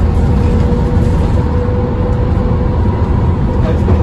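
TransBus Trident's Cummins ISCe straight-six diesel engine running hard under load, heard from inside the bus as a steady low drone with a faint whine over it.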